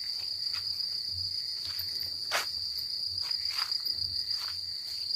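Night insects chirring in a steady high-pitched drone, with faint irregular ticks scattered through it.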